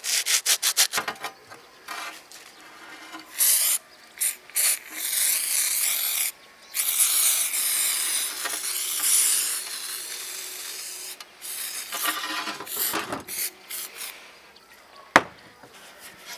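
Sandpaper scrubbing a rusty steel saw blade in quick strokes for about the first second. Then an aerosol spray can hisses onto the blade in several bursts, the longest lasting a few seconds. Near the end come a few rubbing strokes and one sharp click.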